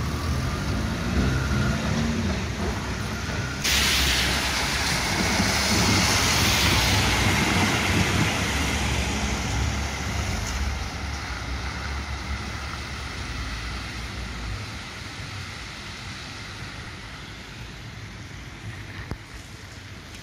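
Trams and road traffic on wet city streets: a low rumble of a tram running, then after an abrupt change about four seconds in, a strong hiss of tyres and wheels on the wet road as a tram and cars pass, fading gradually toward the end.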